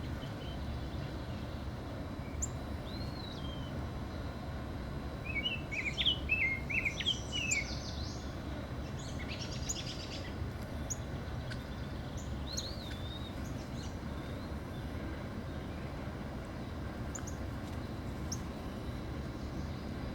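Northern cardinal singing in short bursts of quick slurred whistled notes, a dense run about five to eight seconds in and sparser phrases elsewhere, over a steady low background rumble.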